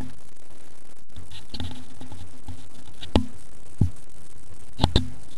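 Handling noise from a phone camera being moved and put away: several sharp knocks and rubs about three to five seconds in, over a steady low hum.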